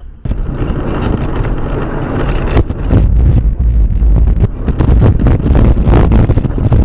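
Vehicle running with heavy wind buffeting and road rumble on the dashcam microphone, starting abruptly and growing louder and crackly after about two and a half seconds.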